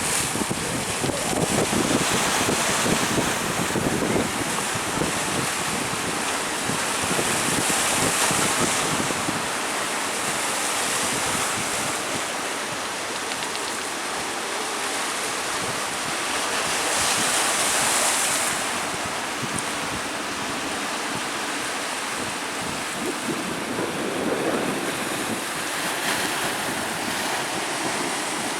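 Surf breaking in strong wind, a steady rush of waves that swells louder several times, with wind buffeting the microphone.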